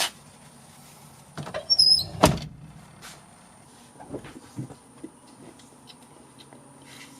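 Short throw shifter parts being forced into place: a brief high squeak and a sharp metallic clunk about two seconds in, then light clicks and knocks as the parts are worked.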